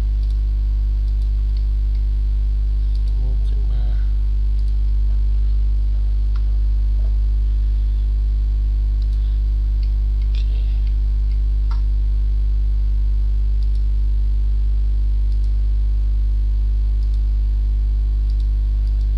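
Steady electrical mains hum in the recording, a low drone with a ladder of overtones that does not change. A few faint short clicks sit on top of it about ten and twelve seconds in.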